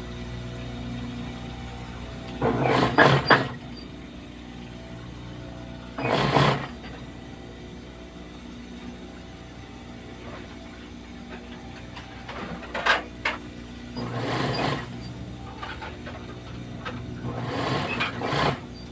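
Industrial sewing machine stitching a T-shirt seam in about five short runs, each half a second to a second long, with pauses between them while the fabric is repositioned, over a steady hum.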